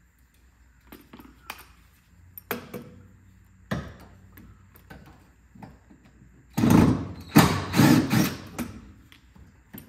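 A cordless impact wrench run in three short bursts near the end, loosening fasteners under the truck. A few light clinks and knocks of tool handling come before it.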